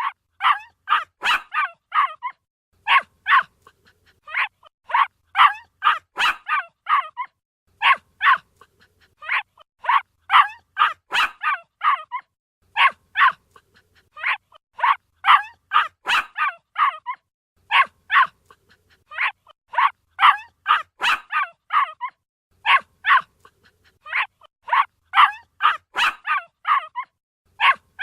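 Puppy yapping: quick runs of high-pitched barks, several in each run, with short pauses between runs, repeating steadily.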